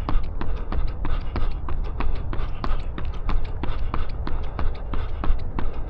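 A runner's footsteps striking the ground at a steady tempo-run cadence, about three steps a second, picked up by a body-worn action camera, over a steady low rumble.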